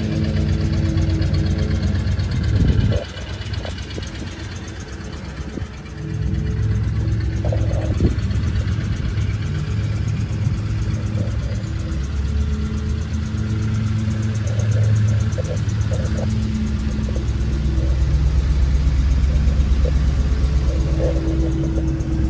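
1940 Ford pickup's flathead V8 running steadily at idle. It turns noticeably quieter for a few seconds about three seconds in, then comes back up. The engine runs smoothly, having just been got running again after it would not start.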